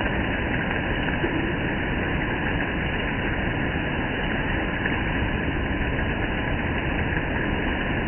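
Steady rain falling on a gravel yard and the surrounding foliage, an even hiss with no letup.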